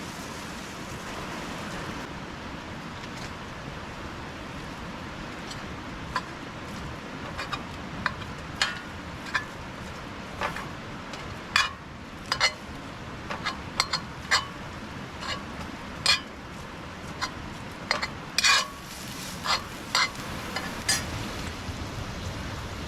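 Leftover hamburger meat and onions frying in a pan on a camp stove with a steady sizzle. From about six seconds in, a utensil stirs and breaks up the meat with irregular scrapes and clinks against the pan.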